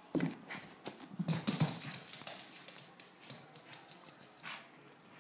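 A small dog's claws clattering and skittering on a hardwood floor as it scampers about with a sock. There is a quick, dense run of clicks in the first couple of seconds, then scattered ones, with another flurry about four and a half seconds in.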